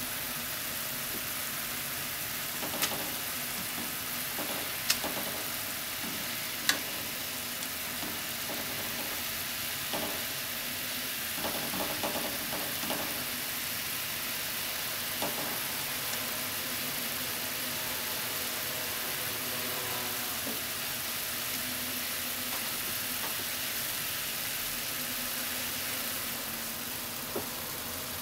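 Kakiage fritters simmering in mentsuyu broth in a nonstick frying pan, with a steady hiss throughout. Several sharp clicks of chopsticks on the pan come about 3, 5 and 7 seconds in, and a brief clatter follows around 12 seconds.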